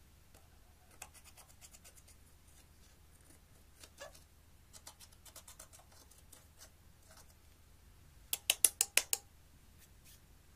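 Small metal tool scraping and breaking up pressed eyeshadow in a plastic palette, with light scratches and clicks. A little after eight seconds in comes a quick run of about six sharp taps, the loudest sound.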